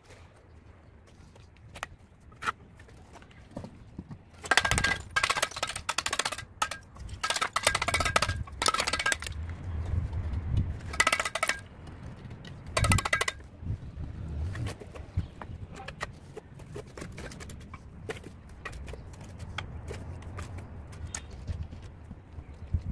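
A mason's steel trowel tapping and clinking against hollow clay bricks and mortar while bedding bricks into a wall. There are several quick runs of clinking taps with a short metallic ring in the first half, then quieter scattered knocks.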